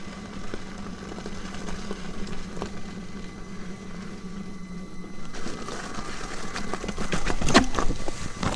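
Electric unicycle (a Commander) running up a gravel trail, its motor giving a steady low hum and its tyre crunching over loose stones. From about five seconds in, the crunching grows louder, with sharp knocks and crackles of rocks under the tyre toward the end.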